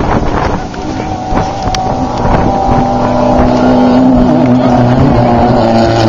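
Class 11 stock VW Beetle race car's air-cooled flat-four engine running at a steady pitch. It grows louder about halfway through and then holds a loud, even drone. Wind buffets the microphone at the start.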